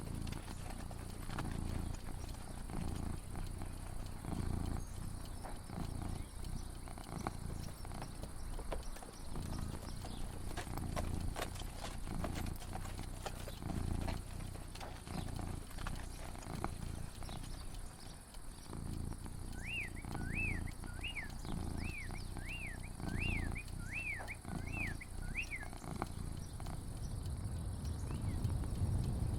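Outdoor ambience with an uneven low rumble and scattered faint clicks. About two-thirds of the way through, a bird sings a run of about ten quick, repeated chirps, and a couple more come faintly near the end.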